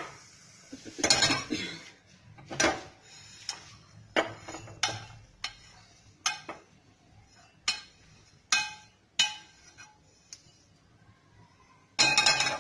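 A spoon scraping and clinking against a stainless steel frying pan as dry-roasted oats are emptied out: a string of sharp metallic clinks, about one a second. It ends with a louder clatter of metal.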